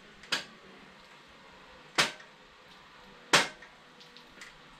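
Three hammer blows on a bicycle crank's cotter pin, metal on metal, about a second and a half apart, each with a short ring: the pin is being tapped out of the crank.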